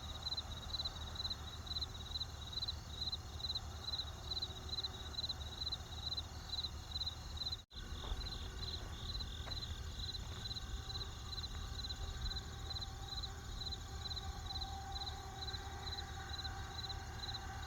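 Crickets chirping in a steady, even rhythm of about three high chirps a second, over the low noise of a campfire with a few faint crackles. The whole sound drops out for a split second about eight seconds in, and a steady lower hum comes in during the second half.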